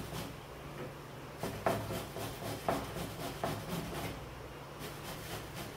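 Bottle gourd being grated by hand on a metal grater: short scraping strokes about once a second, over a faint low steady hum.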